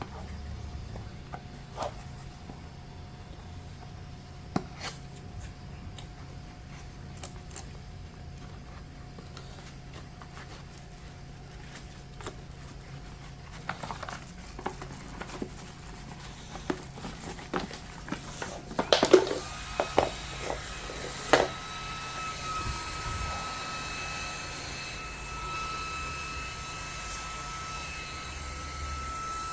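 Packaging and plastic parts handled with scattered clicks and rustles. About two-thirds of the way through comes a cluster of sharp clicks. The small motor of a Livwell Tornado cooling handheld fan then starts and runs with a steady high whine over an airy hiss.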